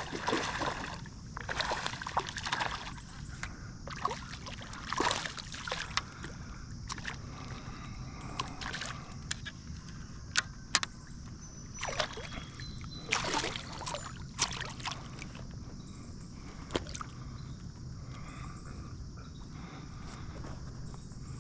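Water splashing and sloshing in a dozen or so short, irregular bursts as a hooked smallmouth bass thrashes at the surface while it is played and landed, over a steady background hiss.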